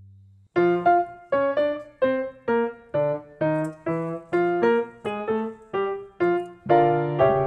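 Background piano music: a run of single notes, about two a second, begins about half a second in, after a low tone fades out.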